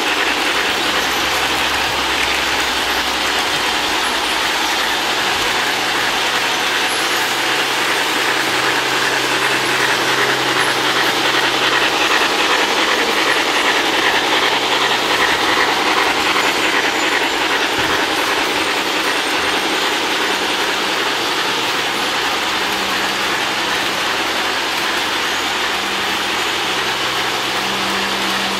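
Electric model trains running on track: a steady rolling rumble of the wheels on the rails with a low motor hum.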